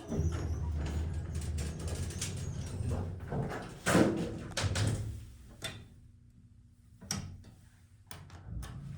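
Elevator car doors of a Montgomery A-Series hydraulic elevator sliding on their door equipment, with a run of clicks and clunks and one loudest knock about four seconds in.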